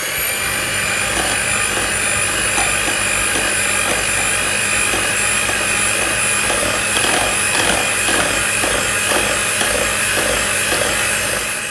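Electric hand mixer running with a steady high whine, its beaters churning condensed milk and cocoa powder in a stainless steel saucepan; the motor stops right at the end.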